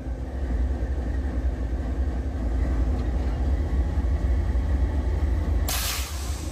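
Diesel freight locomotive's engine rumbling as it pulls away from its cut of cars. Near the end, a short sharp blast of air as the brake air hose between locomotive and car snaps apart.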